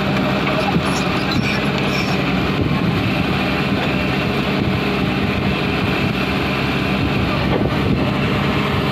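Hyundai crawler excavator's diesel engine running steadily under working load. A few light clinks in the first couple of seconds.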